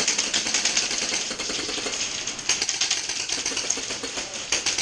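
Airsoft guns firing rapid bursts: a dense, fast clatter of shots.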